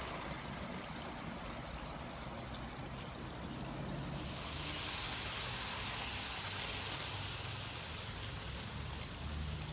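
Model InterCity 125 train running along garden track: a steady rushing rumble of wheels on rail with a low hum, the hiss growing stronger about four seconds in.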